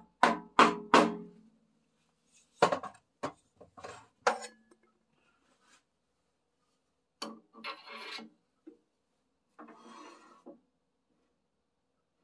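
Sharp wooden knocks and clunks as a red cedar box blank is handled against the metal spindle and chuck of a stopped wood lathe. They are followed by two short scraping rubs of about a second each, one about seven seconds in and one about ten seconds in.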